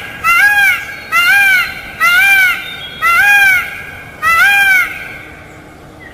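Peacock calling: a series of five loud, nasal calls, each rising and then falling in pitch, repeated about once a second and stopping about five seconds in.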